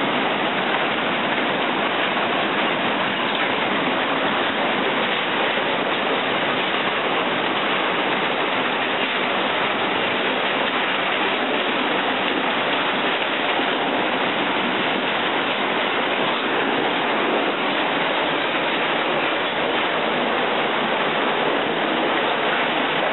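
Tsunami floodwater rushing, a steady, unbroken wash of noise that does not change.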